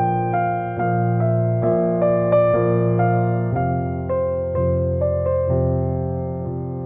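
Background music: a slow piano melody over held low notes.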